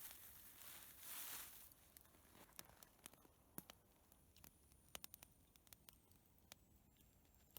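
Near silence: a soft hiss in the first second or two, then scattered faint clicks and ticks.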